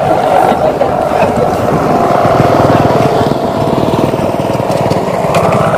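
Sendaren hummers on bapangan kites flying overhead, making a loud, steady buzzing drone with a held tone running through it.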